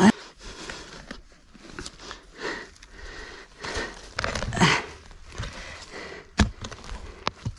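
A shovel digging into forest soil and leaf litter among tree roots: a hard stab at the start, several scraping scoops of earth, and two sharp knocks near the end as the blade strikes.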